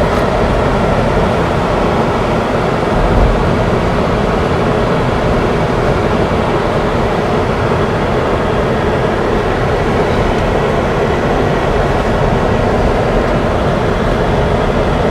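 Mahindra Thar driving along a road: a steady mix of engine and tyre noise, with one slightly louder low thump about three seconds in.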